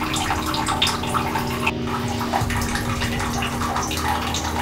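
A steady low hum with an even hiss over it, broken by many small irregular ticks.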